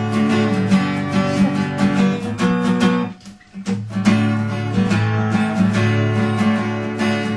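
Acoustic guitar strummed in chords, instrumental with no singing, with a brief break a little over three seconds in before the strumming picks up again.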